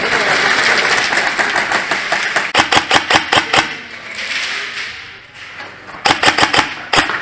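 Airsoft rifle firing two quick, uneven strings of shots, each lasting about a second, the first about two and a half seconds in and the second about six seconds in, with one more shot near the end.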